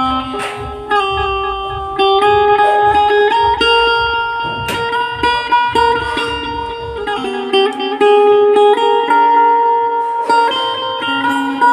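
Indian banjo (bulbul tarang, a keyed string zither) played through a portable amplifier: a melody of single plucked notes that step up and down, each ringing on.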